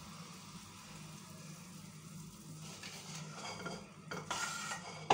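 Metal spoon scraping thick cooked mixture out of a steel kadhai into a steel plate: quiet at first, then a few scrapes in the second half and a sharp metal clink at the very end, over a faint steady hum.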